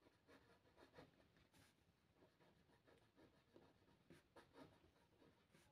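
Faint scratching of a pen writing on paper, in short, irregular strokes.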